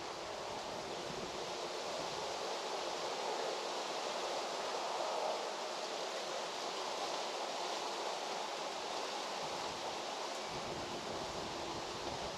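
Steady rural outdoor ambience: an even rushing noise with no distinct events, swelling slightly midway.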